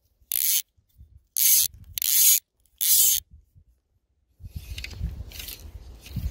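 Fly reel's click pawl buzzing in four short pulls as line is drawn off, followed from about two-thirds of the way in by a low rumbling handling and water noise.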